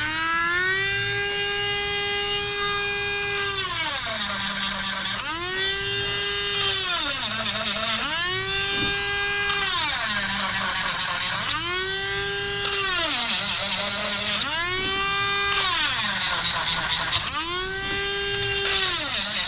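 A Dremel rotary tool with a grinding stone sharpening a chainsaw chain's cutters. The motor's whine drops in pitch with a hissing grind each time the stone is pressed into a tooth, about six times, roughly every three seconds, and rises back up between teeth.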